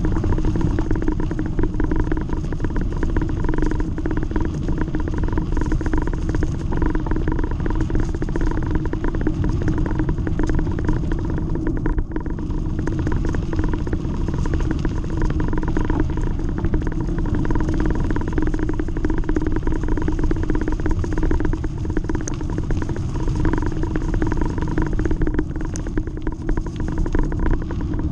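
Bicycle rolling over a gravel trail strewn with fallen leaves, heard as a steady rumble and rattle picked up through a handlebar-mounted action camera.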